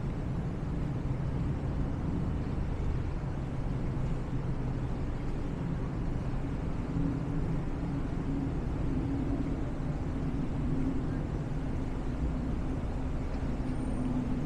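Steady low hum of city street traffic.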